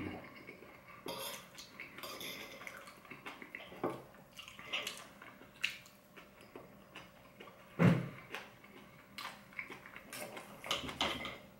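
Eating sounds: chewing and lip smacks, with a fork and knife clicking and scraping on a ceramic plate as meat is cut. One brief louder sound comes about eight seconds in.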